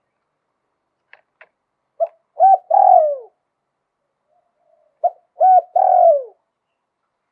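Spotted dove cooing in the 'liw tan' pattern prized by Thai dove keepers. There are two phrases, each a short note, a coo, then a longer coo that drops in pitch at its end.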